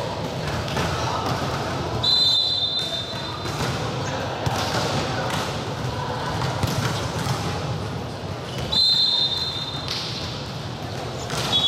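Referee's whistle, blown in long single blasts: about two seconds in, again near nine seconds, and once more just at the end. The first signals the serve and the second ends the rally. Under it runs a gym's crowd chatter, with thuds of the volleyball and players on the court.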